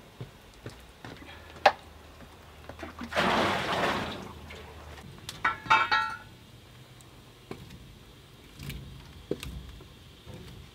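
Metal knocks and clanks at a homemade wood-fired maple sap evaporator: a sharp knock, then a rush of sap pouring off from the evaporator for about a second and a half, followed by a short cluster of ringing metallic clinks and a few lighter clicks.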